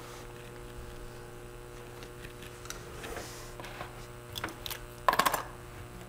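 Steady electrical hum, with a low buzz and a couple of higher tones over a faint hiss. A few faint clicks come about four and a half seconds in, then a brief louder cluster of sharp clicks about five seconds in.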